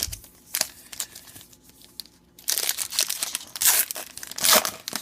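A trading-card pack wrapper being torn open and crinkled by hand, with a few light ticks, then loud tearing and crinkling from about halfway in.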